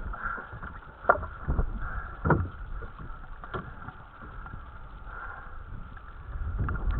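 Wind and water noise aboard a small dinghy at sea, broken by a few sharp knocks, the loudest about one and two seconds in.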